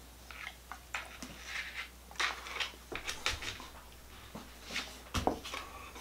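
Scattered soft sniffs, rustles and small clicks from a dog nosing and pawing at a person's hand, begging for food, with two dull knocks: a faint one about three seconds in and a louder one about five seconds in.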